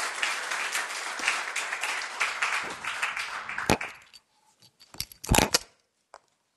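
Audience applauding, dying away about four seconds in. A sharp click and then a cluster of loud knocks follow a little after.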